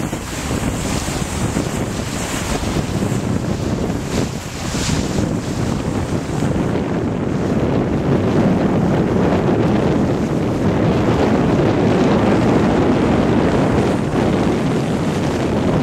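Wind buffeting the microphone and water rushing past the hull of a sailboat under way in a 15–20 knot breeze. The noise grows louder about halfway through.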